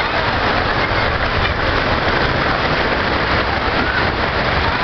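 Floodwater rushing steadily down a street, an even, unbroken rush of water.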